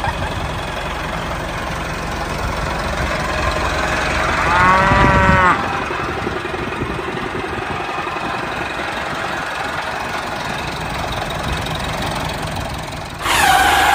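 A cow moos twice, once about four and a half seconds in and again near the end, each call arching in pitch. Under the calls a tractor engine runs steadily, its low rumble dropping away after the first moo.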